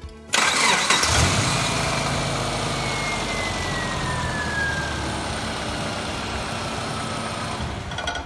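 Subaru EJ25 SOHC flat-four engine starting up about a third of a second in, flaring briefly in revs and settling to a steady idle, with a whine that slowly falls in pitch as the revs come down. It runs without a knock, the check of a just-repaired rod knock and head gasket.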